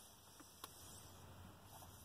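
Near silence: faint car-cabin room tone with two small clicks a little over half a second in.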